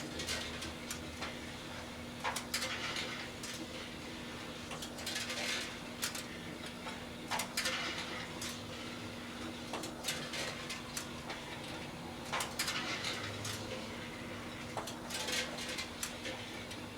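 Two microwave ovens, one a large Kenmore, running with a steady hum while Christmas lights inside them spark and crackle in irregular bursts of snapping every second or two.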